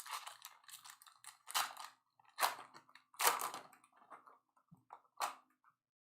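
Crinkling and tearing of a trading card pack's wrapper as it is opened, in several sharp crackly bursts with lighter rustling between them.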